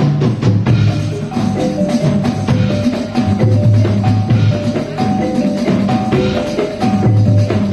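Javanese gamelan music accompanying a dance: metallophones ringing out a melody of held notes over low drum strokes, in a steady rhythm.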